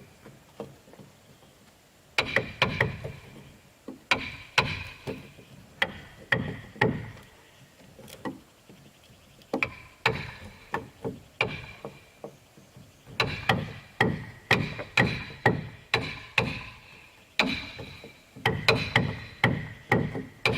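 Repeated blows of a hand tool striking wood, coming in quick runs of several strikes with short pauses between, each blow leaving a brief metallic ring. The striking starts about two seconds in.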